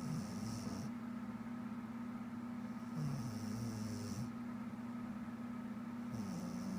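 A woman snoring in her sleep, one snore about every three seconds: at the start, about three seconds in, and near the end, over a steady low hum.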